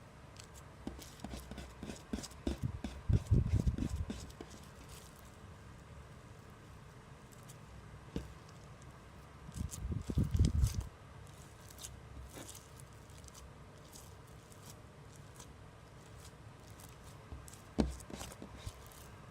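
Cloud slime being kneaded and squished by hand, in three bouts of soft squelching thuds with fine crackling clicks: about a second in, around ten seconds in, and briefly near the end.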